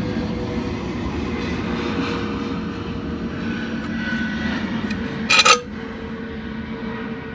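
A woman sneezes once, sharp and short, about five seconds in, over a steady droning background noise.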